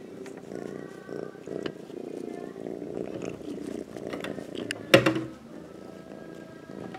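A kitten purring close to the microphone, a steady low rumble with scattered faint rustles and clicks. About five seconds in there is one sharp, loud knock.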